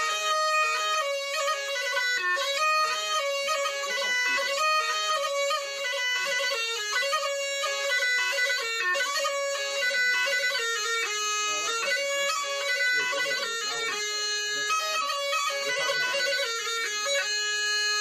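Black Sea tulum (bagpipe) music playing a quick, unbroken folk melody.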